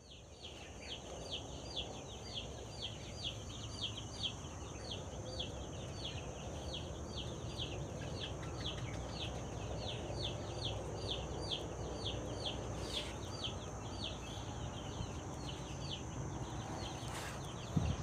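Young chicks peeping nonstop: a steady run of short, high, falling peeps, about three a second, over a faint steady high whine. One short knock comes near the end.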